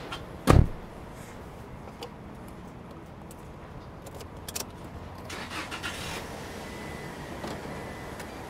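A pickup truck's door slams shut about half a second in. A few light clicks and a short rattle follow, over a steady low background hum.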